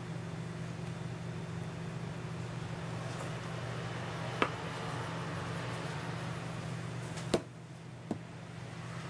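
BRS-3000T titanium canister stove burning steadily under a lidded pot, a steady gas-flame hiss. A few sharp clicks break in, the loudest about seven seconds in, after which the hiss briefly drops.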